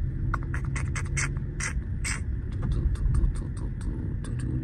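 Turn-signal indicator ticking in the cabin of a Mercedes-AMG GLE 53, over the steady low rumble of engine and road. About seven louder, unevenly spaced clicks come first, then lighter, quicker ticks at several a second.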